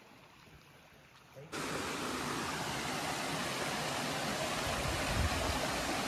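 Shallow stream running over rocks: a steady rush of water that cuts in abruptly about a second and a half in, after a faint, near-quiet start.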